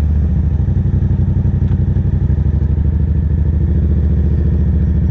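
Motorcycle engine running steadily at low revs as the bike rolls slowly, its firing pulses even throughout.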